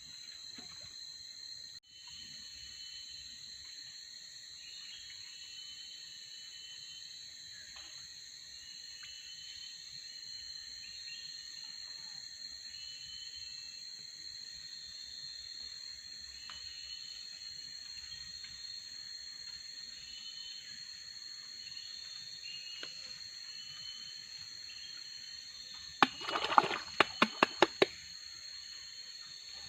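Tropical forest insect chorus: a steady high-pitched drone on two pitches, with short chirping calls repeated about once a second. Near the end comes a quick run of about seven sharp clicks.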